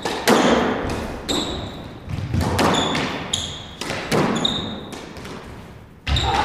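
Squash rally: the ball smacks off racquets and the court walls about once a second, each hit echoing in the enclosed court. Short high squeaks of court shoes on the wooden floor fall between the hits.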